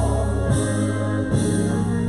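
Live gospel worship music: a praise team of singers with a band of drums, keyboard and guitar, the bass notes held strong and steady.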